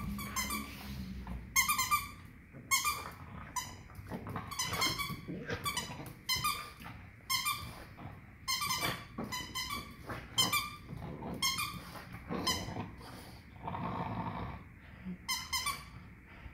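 Rubber squeaky dog toy squeezed again and again, giving a string of short, sharp squeaks in an uneven rhythm. A longer, lower sound comes near the end.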